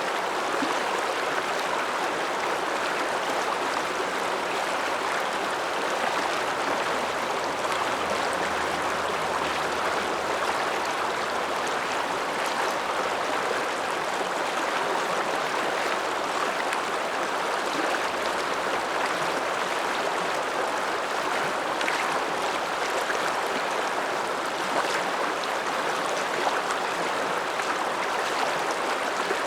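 Alpine mountain river rushing steadily, an even, unbroken water noise.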